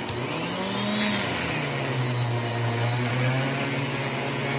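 Dremel rotary tool running at high speed, buffing a rusty knife blade with polishing compound. Its pitch rises briefly in the first second and a half, then holds steady.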